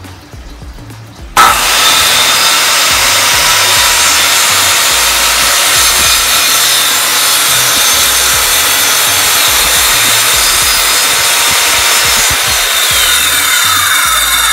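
Circular saw starting with a sudden jump in level about a second and a half in, then running steadily as its blade crosscuts plywood in a test cut; a falling whine appears near the end.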